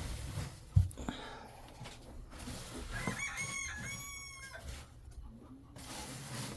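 A chicken giving one drawn-out call about three seconds in, lasting about a second and a half, with a sharp knock just before the first second.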